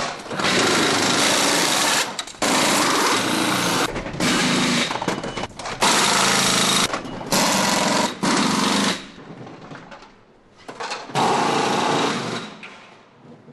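Pneumatic wheel guns (impact wrenches) rattling in a series of short bursts, each about a second long with brief gaps, as wheel nuts are spun off and on during pitstop practice on a single-seater race car.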